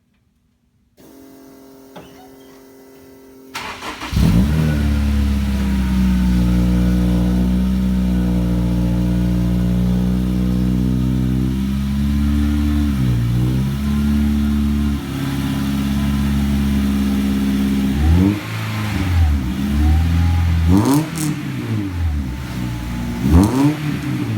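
Honda S2000 inline-four engine, swapped into a BMW 2002, started through its custom exhaust about four seconds in after a faint hum and a click. It settles into a steady fast idle, dips and recovers once, then is blipped up and down in several quick revs near the end.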